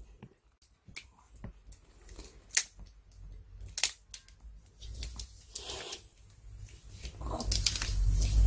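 Pomeranian biting and gnawing a dried duck-cartilage chew: scattered crunches and clicks of teeth on the hard treat, sparse at first, then busier and louder near the end as it chews it on the floor, with low thumps.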